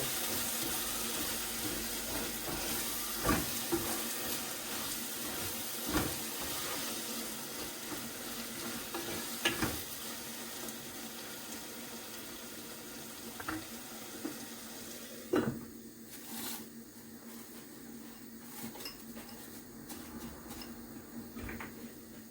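A pot of plantain and fish cooking on the fire with a steady hiss, with a few sharp clinks of the pot and utensils; after a knock about fifteen seconds in, the hiss falls away and it goes quieter.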